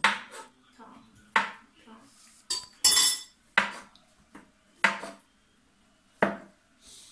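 A table knife knocking and clinking against a plate while banana is sliced onto crackers. There are about seven sharp strikes at uneven gaps of roughly a second, each with a short metallic ring.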